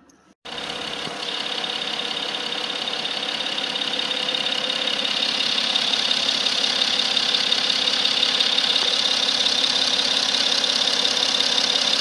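BMW X4 30d's three-litre straight-six diesel engine running steadily. It starts abruptly about half a second in and grows slightly louder.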